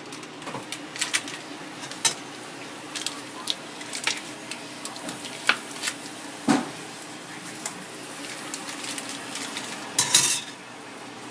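Kitchen utensils clinking and knocking against a cooking pot in scattered strikes, with a louder knock partway through and a short burst of clatter near the end.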